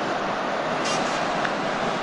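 Stadium crowd noise at a football match, a steady dense roar of many voices with no single sound standing out.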